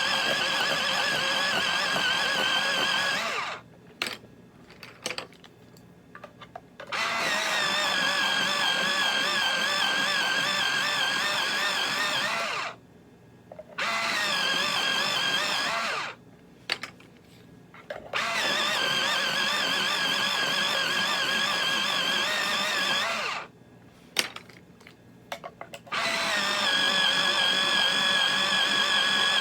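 A small electric motor, like a blender's, run in five bursts of a few seconds each with short pauses between, its whine wavering in pitch; a few clicks fall in the pauses.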